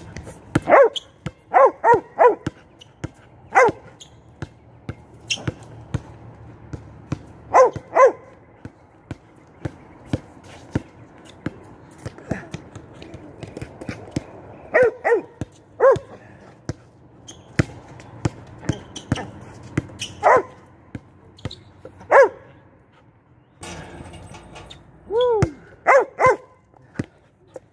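Small dog barking in short, sharp barks, singly or in quick runs of two to four, every few seconds. Between the barks a basketball thuds on the concrete court.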